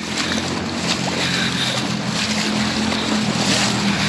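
Knee-deep flood water in a street sloshing and splashing as someone wades through it, with wind noise on the phone microphone and a low steady hum underneath.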